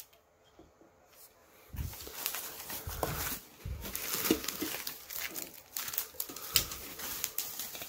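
Bubble wrap and plastic packaging crinkling and rustling as hands dig wrapped cookware pieces out of a cardboard box, starting about two seconds in, with small crackles and a few soft knocks.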